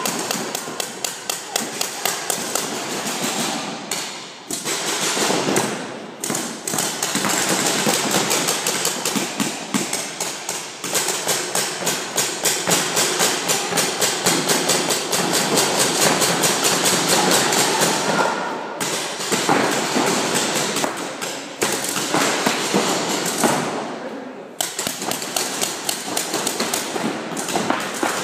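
Paintball markers firing in rapid, near-continuous strings of shots, many per second, with a few short breaks, the paintballs smacking into the inflatable bunkers.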